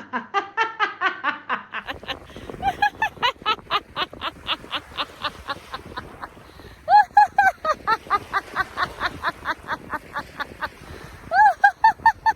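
Deliberate, fake laughter: rapid, even "ha-ha-ha" pulses about five a second, with louder bursts about seven and eleven seconds in.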